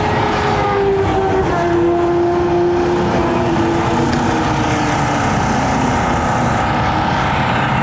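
Motorcycle engines on a race track, heard as a steady drone whose pitches slide slowly up and down.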